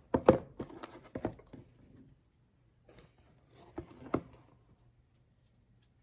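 Handling noise from a boxed surge protector being picked up and turned over: clusters of knocks, clicks and rustles during the first second and a half, and again about four seconds in.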